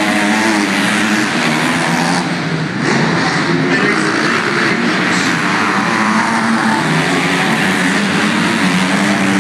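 A pack of 250-class motocross bikes racing, several engines revving up and down at once in overlapping, wavering notes.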